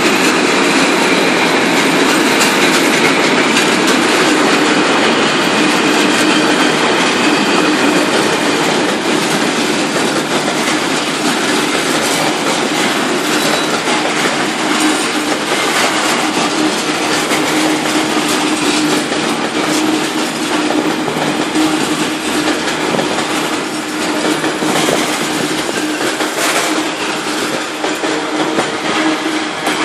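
A long freight train of loaded ballast hopper wagons and open box wagons rolling past close by. A continuous loud rumble and rattle of wheels on rail, with a steady tone running underneath.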